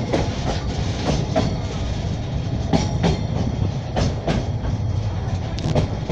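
Narrow-gauge children's railway train running, heard from on board: a steady low rumble with irregular clicks of the wheels over the rail joints.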